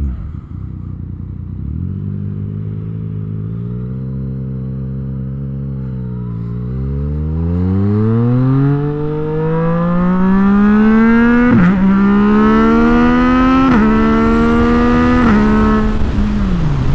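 2018 Yamaha MT-09's three-cylinder engine and exhaust under way: it runs at low revs, then the note climbs as the bike accelerates hard, dropping sharply at three quick upshifts in the second half before easing off near the end.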